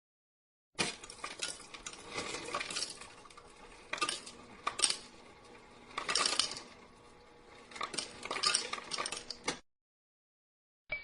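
Ice cubes clinking and rattling against a drinking glass in uneven bursts, with sharp single clinks between them. It starts about a second in and stops abruptly near the end.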